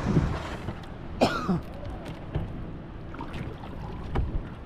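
A person coughs once, sharply, about a second in, over steady low background noise.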